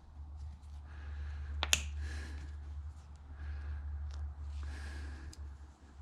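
A single sharp click about a second and a half in, with soft rustling or scraping handling noises before and after, over a steady low hum.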